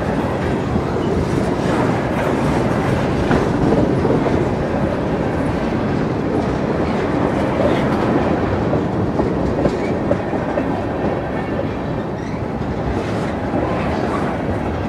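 Freight train of tank cars rolling past close by: a steady noise of steel wheels on the rails, with occasional clacks as the wheels cross rail joints.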